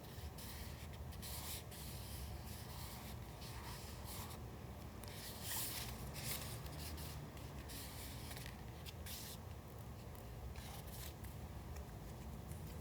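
Paper being handled by hand: a run of irregular rustling and rubbing strokes, thickest around the middle, over a faint steady low hum.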